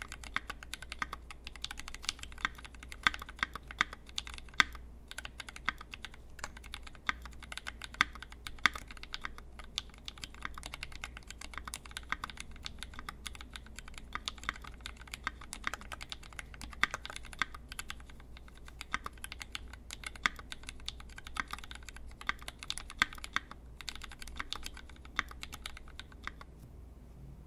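Typing on a QXP mechanical keyboard with a brass plate, lubed Tangerine linear switches with Cherry top housings, and GMK keycaps: a fast, uneven run of keystrokes that pauses briefly twice and stops just before the end.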